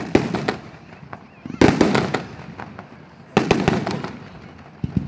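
Aerial fireworks shells bursting overhead: groups of sharp bangs roughly every one and a half to two seconds, each group trailing off in a fading echo.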